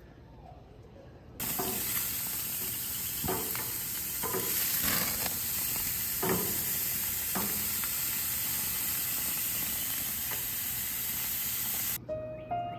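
Steaks sizzling on the hot grates of a gas grill, starting suddenly about a second and a half in, with several short knocks of metal tongs on the meat and grates. Music comes in near the end.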